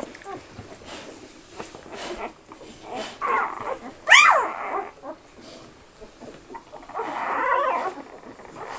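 Newborn Australian Shepherd puppies crying with high whimpers: a short cry about three seconds in, a sharp squeal falling steeply in pitch just after four seconds, the loudest sound, and a longer whining cry near the end.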